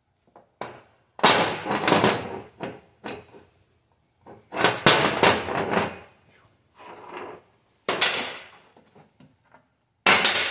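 Metal gears clanking and scraping as they are set down and shifted around on a steel diamond-plate workbench, in several separate bursts of clatter.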